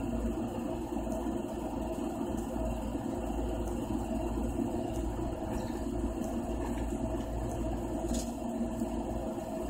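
A steady low mechanical hum with a faint steady whine above it, unchanging throughout.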